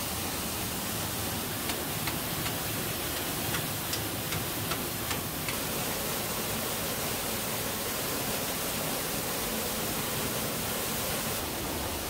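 Steady rushing of a big waterfall, with a few faint light taps in the first half.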